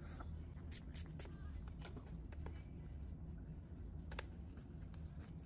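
Faint handling sounds at a nail lamp: about half a dozen light, scattered taps and clicks of fingers and long nails on the lamp's plastic and a lint-free nail wipe, over a steady low hum.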